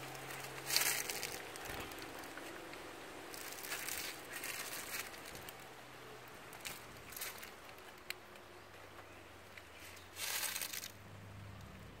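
Banana leaves rustling and crinkling in several short bursts, with one sharp click about eight seconds in.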